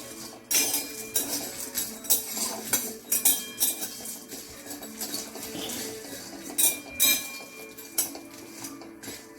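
Metal spatula scraping and clinking against a kadai, stirring whole spices as they dry-roast, in irregular strokes.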